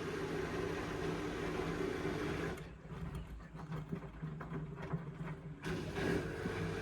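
Indesit washing machine running with a steady motor hum. From a little under three seconds in, the hiss above the hum drops away for about three seconds, with a few light knocks, then comes back.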